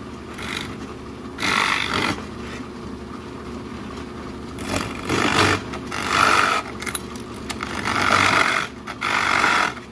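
Drill press running with a 1½-inch Forstner bit boring into the wooden decoy body. The motor's steady hum is broken by about five louder bursts of cutting noise as the bit bites into the wood.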